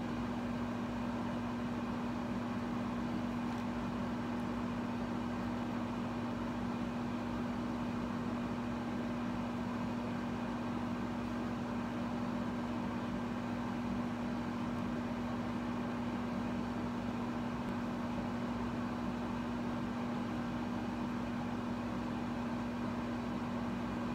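Steady machine hum with one constant low tone over a faint even hiss, unchanging throughout, like a running room appliance.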